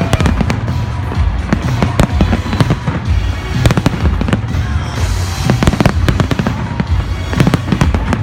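Fireworks display going off: a rapid, continuous string of bangs and booms over a deep rumble, with music playing underneath.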